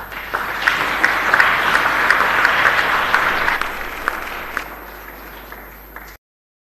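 A roomful of seated dinner guests applauding at the close of a speech. The clapping starts at once and is strongest for the first few seconds, then thins and dies down before cutting off suddenly near the end.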